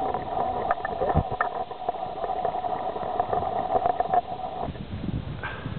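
A steady motor drone with a few overtones that cuts off about four and a half seconds in, with light scattered clicks and rustles over it.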